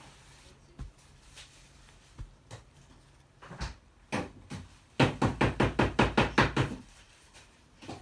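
Scattered light knocks and taps, then, about five seconds in, a quick run of about a dozen loud knocks lasting under two seconds.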